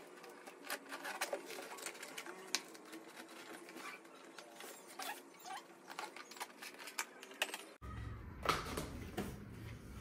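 Scissors snipping and scraping through plastic shrink-wrap and packing tape on a cardboard box, a quick run of small clicks and crinkles. About eight seconds in the sound changes abruptly to a low rumble with rustling.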